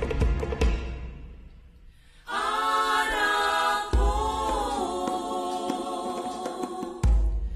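Drumming dies away within the first second. After a short lull, a group of voices starts singing unaccompanied in long held notes. Two deep thumps come during the singing, one about halfway through and one near the end.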